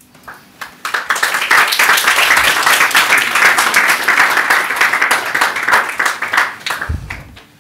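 Audience applauding at the end of a lecture. The clapping starts about a second in, quickly grows full, holds steady, then dies away near the end.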